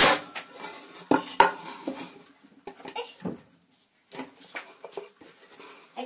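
Pneumatic nail gun firing a nail into a wooden board with a loud sharp bang right at the start, followed by two sharp knocks a little over a second in and lighter clattering of the tool against the wood.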